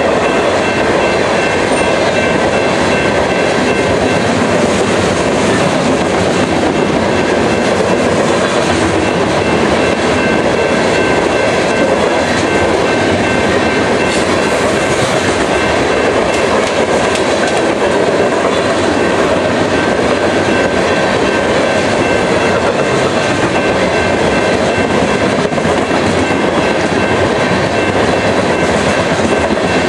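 Coal train's open-top cars rolling steadily past, a continuous rumble and clatter of steel wheels on rail, with faint steady high-pitched tones over it.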